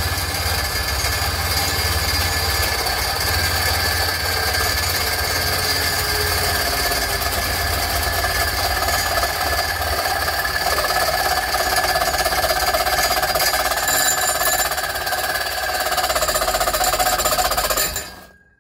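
Power saw cutting through a steel exhaust pipe, running continuously to remove a section of pipe, then stopping abruptly near the end.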